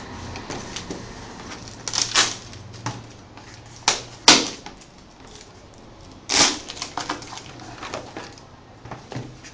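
Irregular sharp clicks and knocks with brief rustles, from an Apple keyboard and its packaging being handled during unboxing. The loudest knocks come about four seconds in and again past six seconds.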